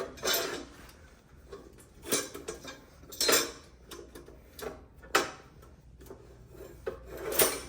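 Hard parts of an animatronic's base knocking and clattering as two base pieces are handled and fitted together, in about five separate clunks spread over several seconds.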